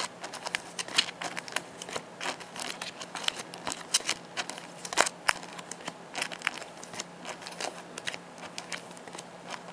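Sleeved Pokémon trading cards being flipped through and handled: the plastic sleeves give an irregular run of sharp clicks and crinkly ticks, thinning out near the end.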